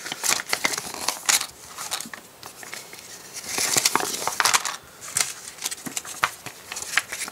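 Paper booklets and leaflets being handled and flipped: rustling with many short, crisp flaps and clicks.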